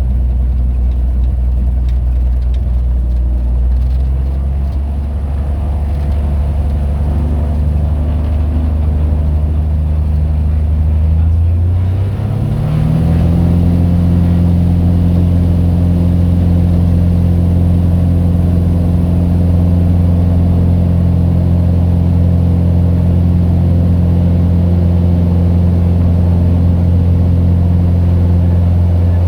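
Cessna 182's piston engine and propeller heard from inside the cabin, running at a steady drone, then rising quickly in pitch and a little in loudness about twelve seconds in as power is increased, and holding steady at the higher setting.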